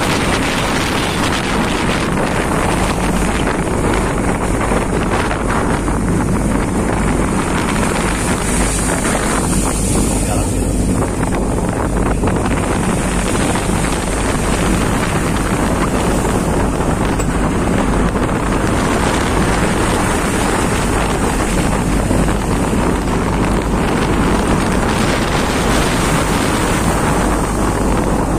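A 30-ton boat's engine running steadily, with wind noise on the microphone.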